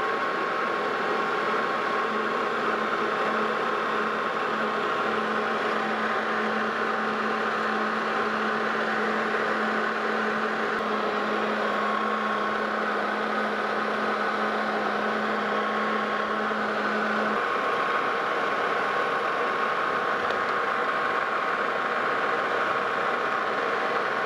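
Metal lathe running while a threading tool takes a first pass on an 8-threads-per-inch Acme thread in a long, thin shaft: a steady machine hum with a clear tone that stops about two-thirds of the way through. The slender shaft is vibrating in the cut.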